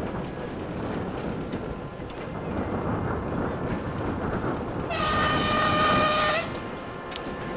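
ChME3 diesel locomotive running as it approaches with its passenger train, then sounding one steady horn blast of about a second and a half, starting about five seconds in.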